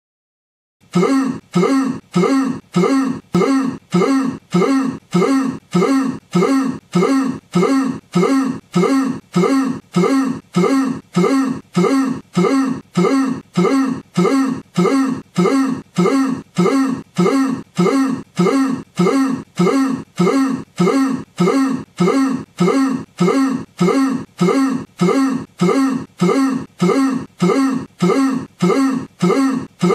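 A man's voice saying one short syllable, 'poo', looped over and over at about three repeats every two seconds, each repeat the same. It starts about a second in.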